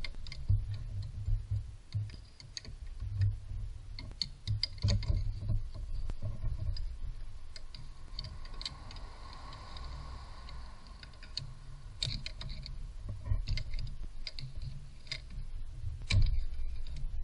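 Hands working a rubber hose and its plastic connector loose in a car engine bay: scattered light clicks and knocks, with a louder knock near the end.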